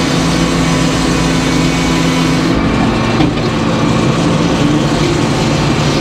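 Large circular sawmill blade cutting through an oak log over the steady running of the mill's engine; the cut ends about two and a half seconds in, and the blade and engine run on steadily as the carriage moves.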